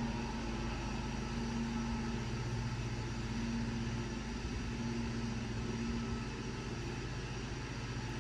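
A machine running: a steady low hum with a few faint pitched tones in it, unchanging throughout.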